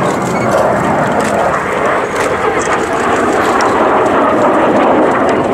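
Jet engine noise from two Kawasaki T-4 jet trainers flying by in formation: a loud, steady rushing sound that swells slightly near the end.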